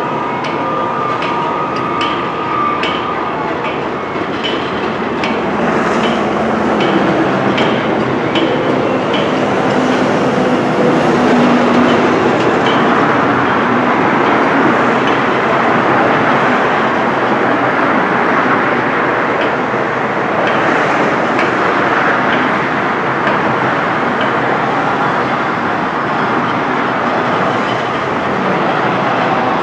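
Train running on rails: wheels clicking evenly over the rail joints, then a louder, steady rumble and rush of noise from about six seconds in.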